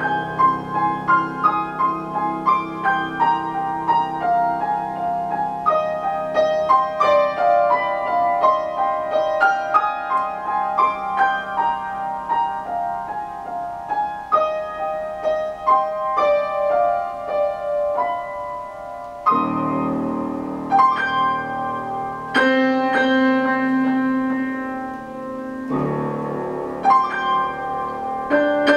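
Grand piano playing solo: a stream of quick single notes, changing about two-thirds of the way through to slower, fuller chords.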